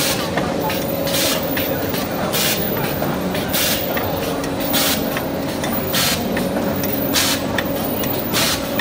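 HL1000KT film machine running with its punching and two-colour stamping units: a steady mechanical hum, cut by a short sharp hiss of compressed air about every 1.2 seconds with each machine cycle.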